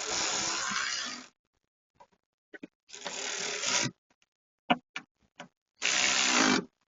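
Power driver running in three short bursts of about a second each, driving home the three Torx screws that hold a car's rear door latch, with a few small clicks in between.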